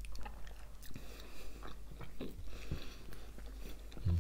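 Close-miked chewing and biting of Kinder Milk Slice bars, soft sponge cake with a milk filling: soft wet mouth sounds with scattered small clicks.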